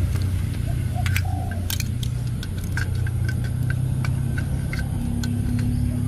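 Scattered light clicks and taps of plastic as the battery-powered toy locomotive and a screwdriver are handled, over a steady low hum.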